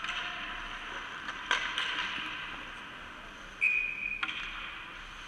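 Ice hockey rink sounds: a steady scraping hiss of skates on the ice with a few sharp clacks of sticks and puck. A single short referee's whistle blast just past halfway is the loudest sound.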